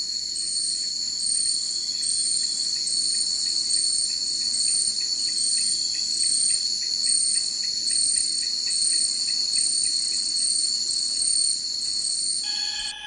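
Chorus of night-time rainforest insects: steady high-pitched trilling, with a chirp repeating about twice a second above it. Near the end it changes to a lower, steady buzzing tone.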